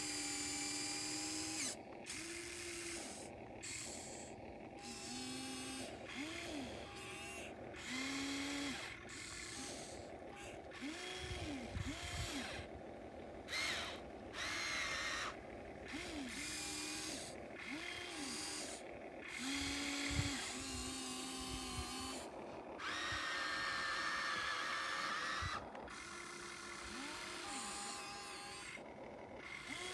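A radio-controlled model excavator's small electric motors whining, spinning up and slowing again in short runs of under a second as it works. There are a few low knocks along the way.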